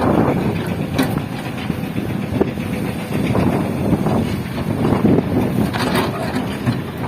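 Heavy diesel construction machinery (excavator and dump truck) running under load, with a rough rumble and several sharp knocks and clanks spread through it.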